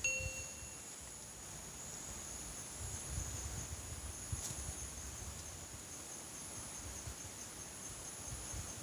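Insects chirping in a steady, high-pitched chorus that pulses slightly. Irregular low rumbling and bumps sound underneath.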